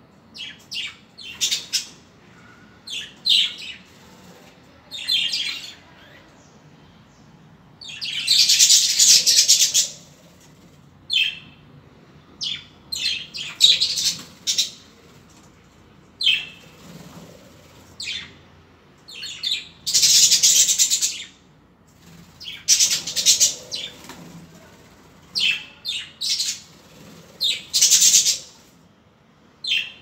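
A flock of budgerigars chirping and chattering in many short high calls, with several louder bursts of dense chatter lasting a second or two.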